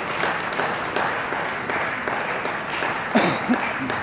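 Applause and clapping in a large sports hall, with a sharp knock a little after three seconds.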